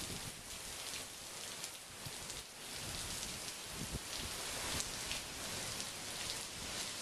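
Heavy wind-driven thunderstorm rain falling, a steady hiss.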